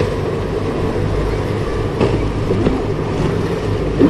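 Steady low rumble and hiss of a large cruise ship moving slowly through the harbour.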